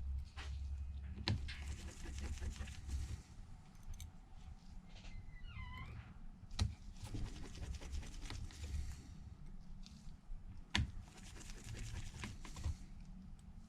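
Small clicks, taps and scraping of a phone's parts and small tools being handled on a workbench, with sharp clicks about a second in, past halfway and near eleven seconds, over a steady low hum. A brief squeaky call that rises and falls sounds a little before halfway.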